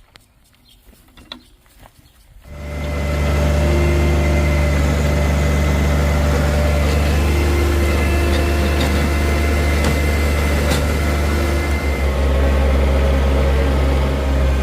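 A few faint clicks, then about two and a half seconds in a John Deere 1023E's three-cylinder diesel engine comes in loud and runs steadily at an even speed.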